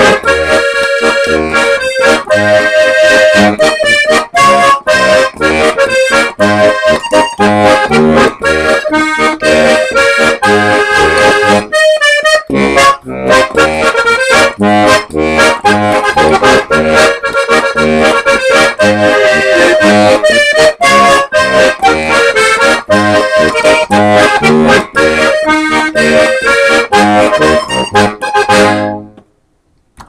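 1980s Matt Rote button box, a diatonic button accordion in B♭/E♭/A♭, playing a polka: an alternating bass-and-chord accompaniment under a treble melody. The bass drops out briefly about twelve seconds in, and the tune ends on a final chord near the end.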